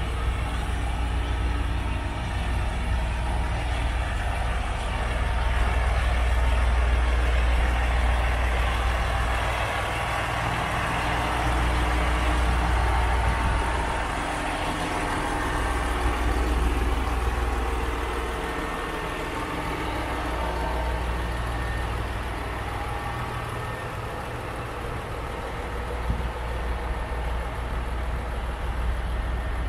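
Train running with a steady low engine drone that swells and eases slowly.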